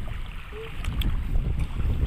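Sea water washing at the shore, with wind buffeting the microphone in uneven low rumbles.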